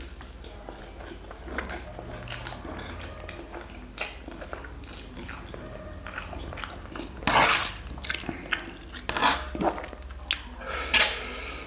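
Close-up eating sounds: a person chewing and slurping spicy instant black bean noodles, with small wet mouth clicks throughout and a few louder slurps in the second half.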